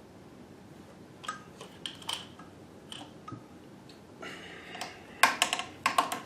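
Scattered small clicks and taps of hands handling a metal sewing machine while threading it, with a quick run of louder, sharper clicks near the end.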